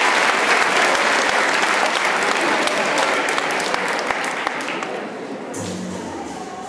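Audience applause, a dense clapping from a large crowd, dying down after about five seconds as music starts.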